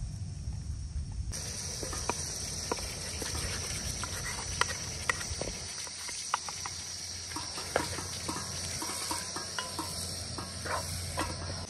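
Steady high chirring of crickets, starting abruptly about a second in, with irregular light clicks and scrapes of a wooden spoon stirring chopped tomatoes in a granite-coated pot.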